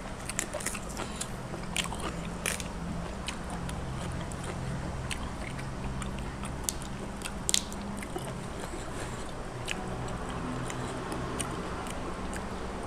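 A person chewing food close to the microphone, with scattered crisp crunches and clicks over a steady low hum.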